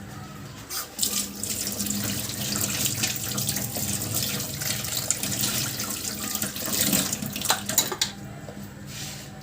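Steady rush of water that starts about a second in and stops near the end, with a few sharp clicks.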